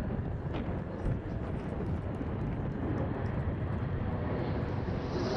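Jet noise from Dassault-Dornier Alpha Jets' twin turbofans, a steady rush that swells near the end as a sharper hiss joins it.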